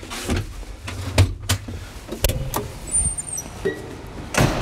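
Operator climbing out of a Cat wheel loader cab: the cab door opening and a string of knocks and clunks of boots and hands on the metal steps and grab handles, over a low steady rumble, with a heavier thump near the end.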